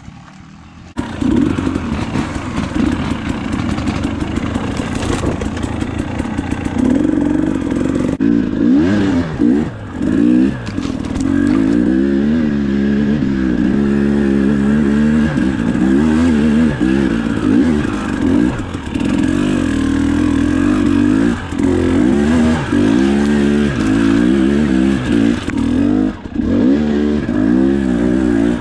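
Dirt bike engine heard from on the bike, coming in suddenly about a second in, then running and revving up and down over and over as the bike climbs a rough trail.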